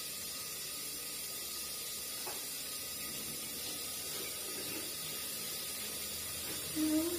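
Steady sizzling hiss of meat browning in hot oil in a pot on the stove.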